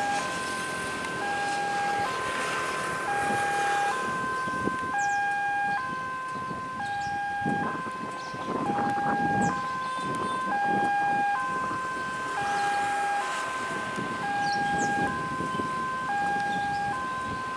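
Electronic railway level-crossing warning alarm sounding a repeating three-note tone pattern, each cycle about two seconds long. Under it runs the low rumble of an approaching diesel-hauled train.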